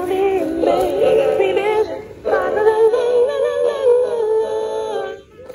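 Christmas song with singing voices, played by the Gemmy 2012 Inflatable Lightshow Carolers' sound box through its small built-in speaker. The singing breaks briefly about two seconds in, then carries on and stops about five seconds in.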